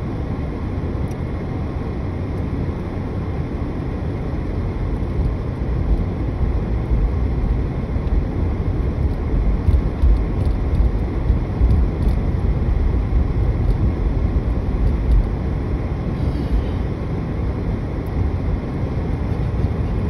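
Car cabin noise: a steady low rumble of engine and tyres on the road, louder and rougher from about six seconds in as the car gets moving from the intersection.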